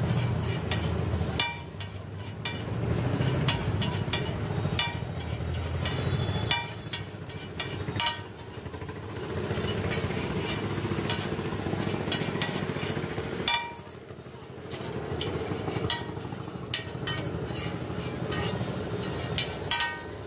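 Chowmein noodles sizzling on a large flat griddle while metal tongs and a spatula stir and scrape them. Many sharp, ringing metallic clinks sound as the utensils strike the pan.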